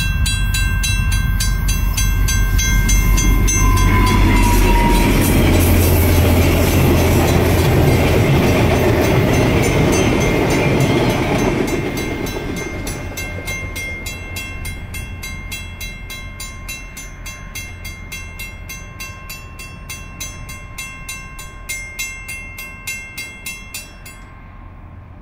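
Level-crossing bell ringing steadily while a VIA Rail F40PH-2D diesel locomotive passes close by. Its loud rumble peaks about four to twelve seconds in, then fades as the coaches roll past and away. The bell stops just before the end.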